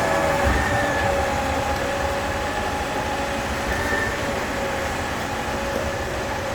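KCP63 concrete pump truck running: a steady mechanical drone with several high whining tones over a low rumble, and a low thud about half a second in.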